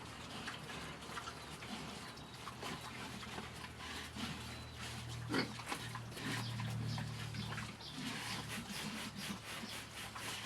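Pigs eating together: a dense, irregular run of short chewing and chomping clicks.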